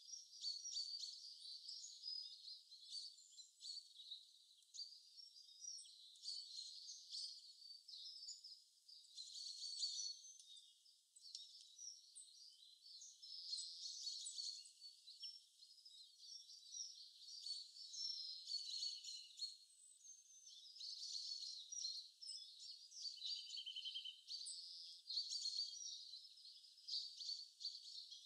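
A faint, continuous chorus of small birds chirping and trilling, many quick overlapping calls with no low sound beneath them.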